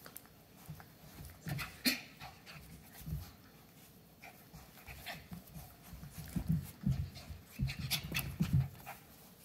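An adult dog and a puppy play-fighting: irregular bursts of dog breathing and mouthing noises with scuffles and a few sharp clicks, coming thicker in the second half.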